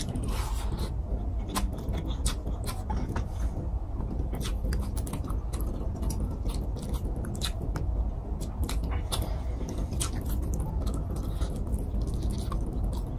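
Close-miked chewing and lip smacking of a person eating rice and fish curry by hand: many small wet clicks scattered throughout, over a steady low hum.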